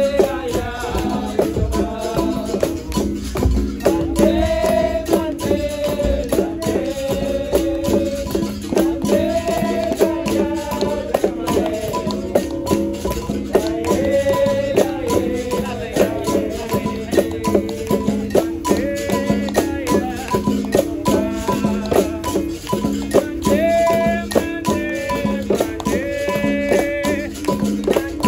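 Capoeira roda music: voices singing held, stepping phrases over the berimbau with its caxixi rattle and steady hand percussion.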